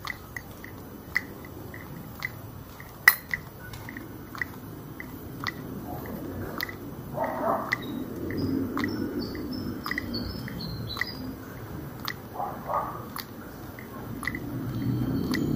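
Footsteps on a paved street, about two steps a second, over a low rumble that swells a little past the middle and again near the end, with a few faint high chirps.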